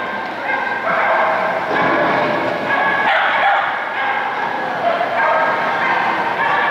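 Dogs barking and yipping continuously, the calls overlapping and echoing.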